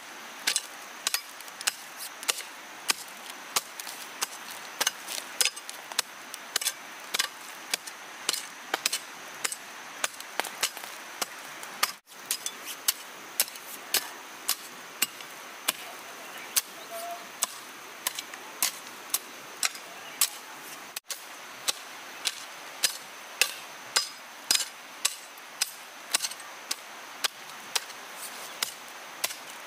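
A folding shovel, blade set at an angle as a hoe, chopping into soil over and over, about two strokes a second.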